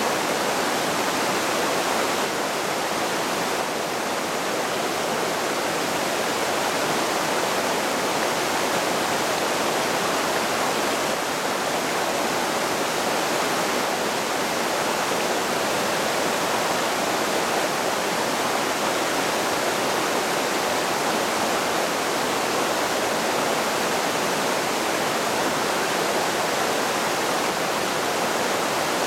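A fast, shallow mountain creek rushing and splashing over boulders: a steady, unbroken roar of water.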